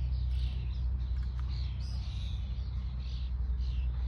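Songbirds singing, many short chirps and trills overlapping, over a steady low rumble.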